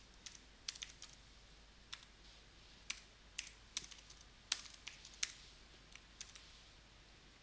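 Typing on a computer keyboard: faint, irregular key clicks, some in quick runs and some spaced apart.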